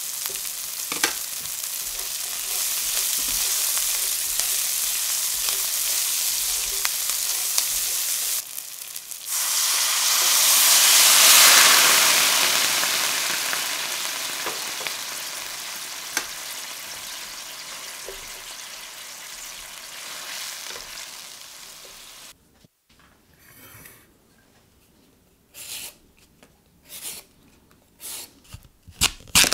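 Chopped shallot and garlic sizzling in oil in a stainless steel pan. About nine seconds in, white wine is poured in and the pan hisses loudly, peaking after a couple of seconds and then slowly dying down to a simmer. Near the end come a few short scraping strokes of a sweet potato being peeled.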